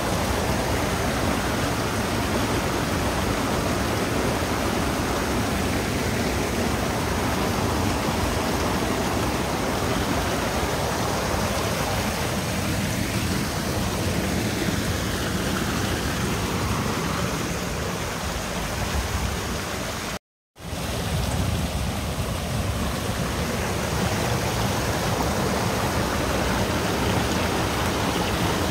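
Steady rush of flowing stream water, cutting out completely for a split second about two-thirds of the way through.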